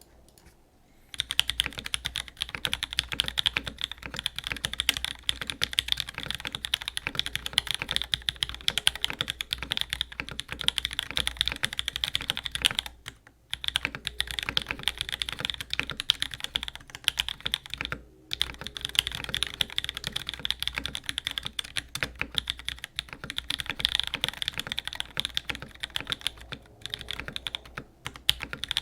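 Fast, continuous typing on a custom Smith and Rune Magnus175 mechanical keyboard: a top-mount board with a polycarbonate middle, an aluminium plate, cork dampening spacers, JWICK Black linear switches, cherry clip-in stabilisers and GMK keycaps. It is a dense stream of key clacks, with brief pauses about 13 and 18 seconds in.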